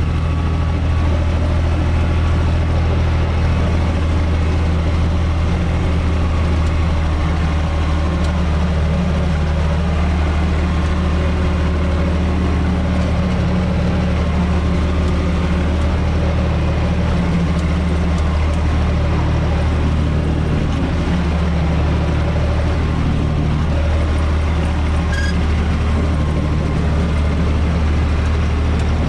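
UTB Universal 445 tractor's four-cylinder diesel engine running steadily at an even speed, heard from inside the tractor's cab.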